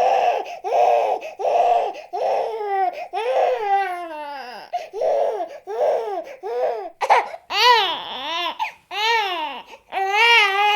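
Baby crying in a run of short, rhythmic wails, about two a second, each rising and falling in pitch. From about seven seconds in the cries grow clearer and higher, with short breaths between them.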